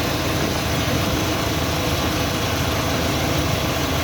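UAZ Patriot's ZMZ-409 four-cylinder petrol engine running under load, with a hard knocking rattle that keeps time with crankshaft speed. The mechanic suspects a rocking piston (piston slap) or a worn piston pin.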